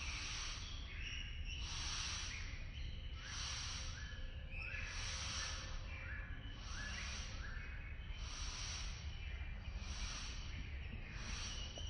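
Nature ambience: a hissing, buzzing sound that swells and fades about once every one and a half seconds, over a steady low rumble.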